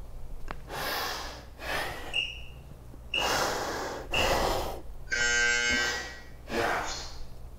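Heavy exercise breathing, a series of strong exhales and inhales. An interval timer gives three short high beeps about a second apart, then a longer buzz about five seconds in, marking the end of the work interval.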